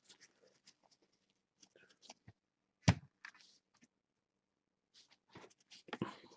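Trading cards being handled and sorted: faint rustles and light clicks of cards sliding off a stack and being set down onto piles, with a sharper click about three seconds in and a cluster of rustles near the end.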